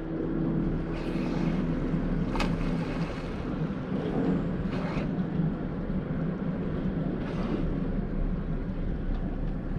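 Boat engine idling with a low hum, under a steady wash of wind on the microphone and water, broken by a few short splashes.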